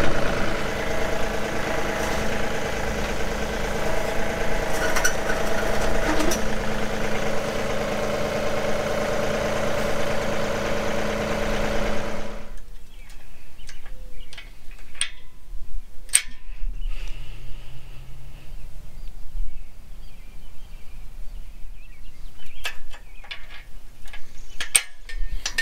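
John Deere compact tractor's diesel engine running steadily, stopping abruptly about halfway. Then a few sharp metallic clicks and clinks as a lynch pin is handled on the loader's steel quick-attach.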